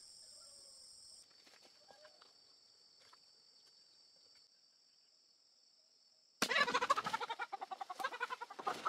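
A faint, steady high-pitched hum with a few light clicks. Then, about six seconds in, chickens suddenly start squawking and clucking loudly in rapid, repeated calls.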